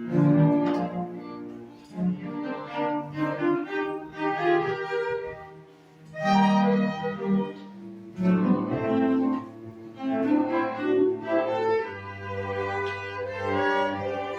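A small instrumental ensemble playing a piece, melodic lines moving over held low notes, with a short pause in the phrasing about halfway through.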